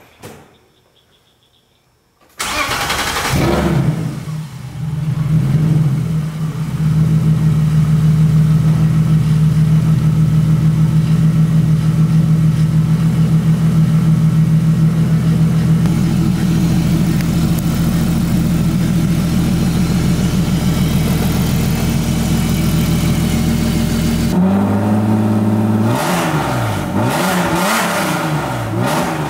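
BMW M52B30 straight-six engine starting: it catches about two seconds in, picks up over the next few seconds, and settles into a steady idle. Near the end the idle steps up and the engine is revved up and down several times.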